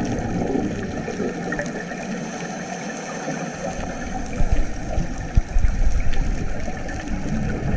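A boat motor running low and steady, with water noise and a few louder low thumps in the second half.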